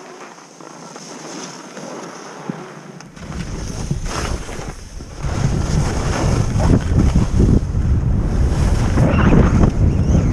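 Wind buffeting a skier's camera microphone, coming in about three seconds in and growing loud as the skier gathers speed downhill, with skis hissing and scraping over firm snow.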